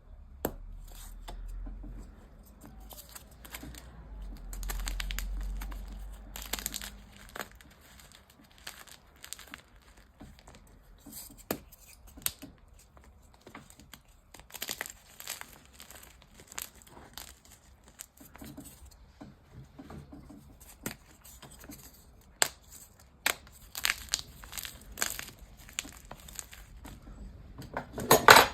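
Dyed gym chalk being crushed and crumbled: irregular crunchy crackles and powdery rustling, with a louder burst of crunching near the end.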